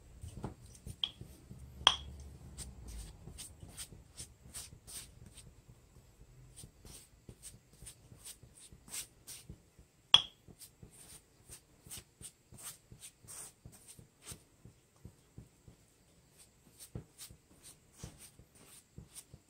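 Silicone pastry brush dabbing margarine and brushing it onto freshly baked buns: a quick run of short, soft strokes, two or three a second. Three sharp clinks, about a second in, near two seconds and about ten seconds in, the last two the loudest.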